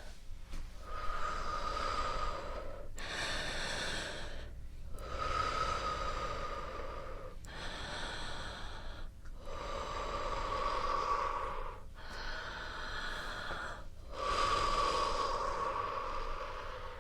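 Slow, deep breaths close to the microphone, in and out in turn: about seven airy breaths of roughly two seconds each, separated by brief pauses.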